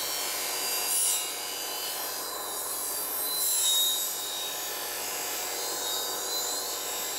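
A small steel hollowing-tool scraper cutter, held in a sharpening jig, being ground on a bench grinder's CBN wheel: a steady rasping hiss that swells louder about a second in and again around four seconds in.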